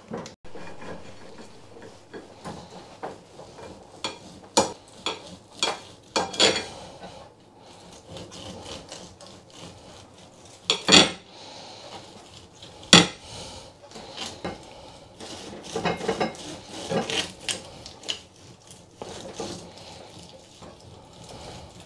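Carving knife sawing through a roast leg of lamb held with a carving fork on a china plate: steady scraping strokes, with the metal clinking against the plate and two sharper knocks about halfway through.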